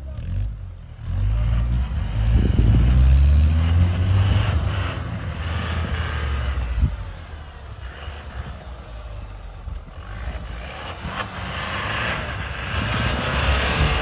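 Toyota Hilux pickup's engine revving hard under load as it climbs through deep snow, loudest a few seconds in. Toward the end it is joined by the hiss of spinning tyres churning up snow.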